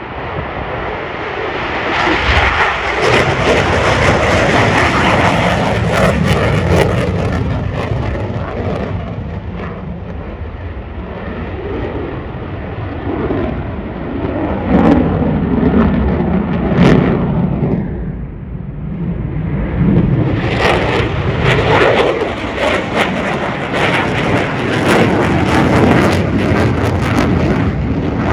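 An F-22 Raptor's twin F119 jet engines at takeoff power as the fighter climbs away overhead: a loud, rumbling jet roar laced with crackle. It fades briefly about two-thirds of the way through, then swells back up.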